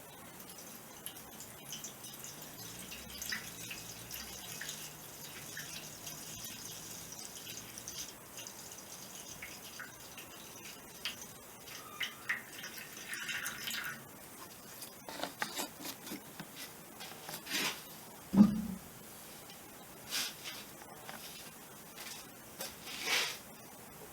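Small metal driveshaft parts being washed by hand in liquid in a metal broiler pan, with scattered light clinks and drips. One louder clunk comes about 18 seconds in.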